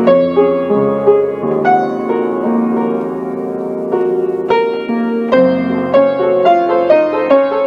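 Background piano music: a gentle melody of struck notes over chords, with a long held chord in the middle before quicker notes resume.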